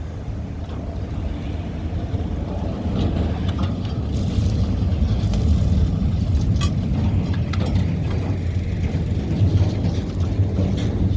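EMD GP38 diesel locomotive's 16-cylinder two-stroke engine running at low speed as it moves freight cars, growing louder as it comes closer. Scattered sharp clicks sound over the engine.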